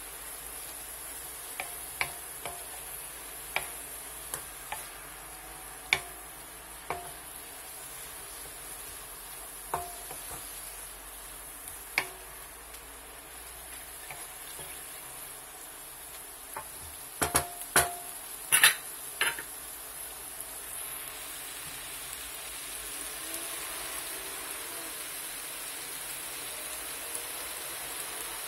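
Mushrooms and mixed vegetables sautéing in a wok with a steady sizzle, while a wooden spatula stirs them and knocks against the pan every second or two. A quick run of knocks comes about two-thirds of the way through, and after that the sizzle grows a little louder.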